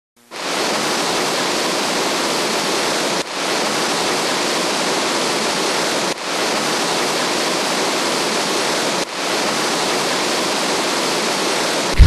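Steady rushing of a waterfall, with a brief dip in level about every three seconds.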